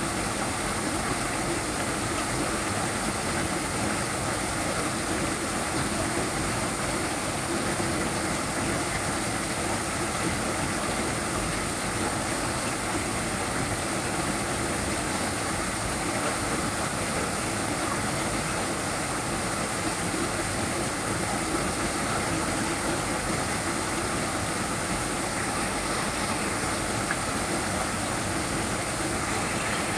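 Small waterfall: water pouring and splashing in a steady, even rush with no breaks.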